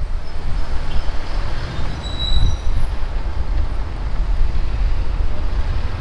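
Jeepney in motion: a steady low rumble of engine and road noise with wind buffeting the microphone, and a brief high-pitched squeak about two seconds in.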